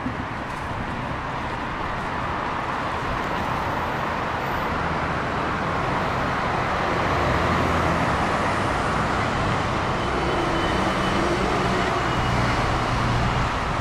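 Road traffic passing on the adjacent road: a steady rush of cars and tyres, with a vehicle's engine hum growing louder in the second half as a minibus goes by.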